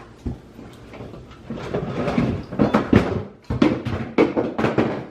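Kitchen clatter: a run of short knocks and clinks of dishes and utensils being handled, sparse at first and coming thick and fast from about a second and a half in.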